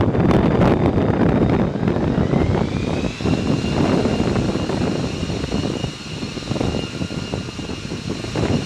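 F-35B Lightning II's jet engine running on deck: a deep rumble with a high whine that rises about two seconds in, then holds steady. Wind buffets the microphone in the first second.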